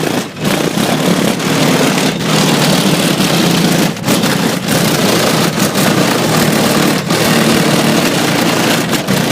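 Music played very loud, heavily distorted into a harsh, rain-like noise with a strong low hum and brief dips every second or few.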